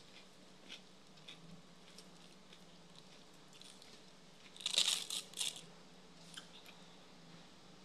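A person chewing and handling food with the fingers: faint small clicks, then a short crackly burst of several sharp crunches about five seconds in.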